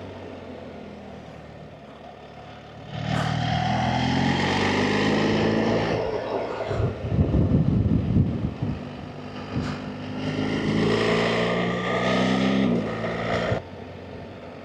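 BMW R 1300 GS Adventure's boxer twin engine, off the throttle for the first few seconds, then opened up sharply about three seconds in and accelerating in two rising pulls. The throttle is shut abruptly near the end.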